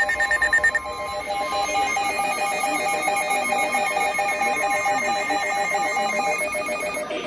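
Electronic emergency alert tone, a rapid, warbling two-note beeping that stops about six seconds in. It is the attention signal for a severe thunderstorm warning.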